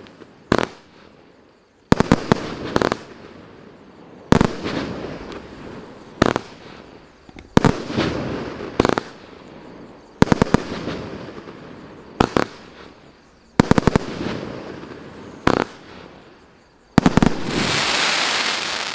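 Maxsem MC125 fireworks cake (88 shots, 20, 25 and 30 mm calibre) firing: sharp bangs every second and a half to two seconds, some in quick clusters of two or three, each followed by a fading hiss. About seventeen seconds in, a louder steady hiss of sparks lasts about two seconds.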